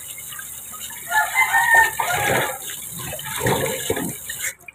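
A rooster crows once, about a second in, over irregular splashing of water being handled by hand.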